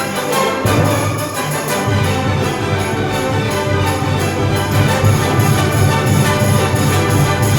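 Orchestral background music with brass, playing steadily.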